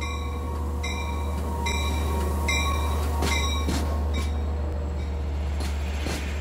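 LIRR DM30AC diesel locomotive pulling into the station with its bell ringing about once a second, under a steady low engine rumble. About three seconds in the bell stops as the locomotive passes, and the bilevel coaches roll by with sharp wheel knocks over the rail joints.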